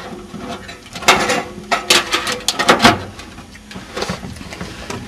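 A PCI capture card being pushed and wiggled into a motherboard slot inside a metal PC case: a series of knocks and scrapes as the card and its metal bracket seat, loudest between about one and three seconds in.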